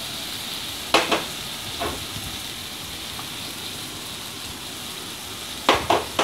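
Onion-tomato masala sizzling steadily in a kadai as ground coconut paste is added. Sharp utensil knocks come twice about a second in, once near two seconds, and three times in quick succession near the end.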